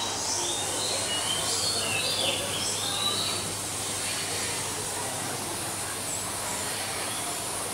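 Steady background hiss with a low hum, the ambience of an aquarium hall, with a few short high chirps during the first three seconds.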